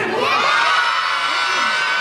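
A crowd of schoolchildren cheering and shouting together. The cheer breaks out suddenly at the start and is held, many high voices at once.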